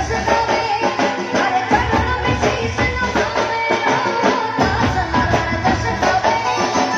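Devotional folk bhajan music: melody instruments over a steady, rhythmic percussion beat with jingling hand percussion.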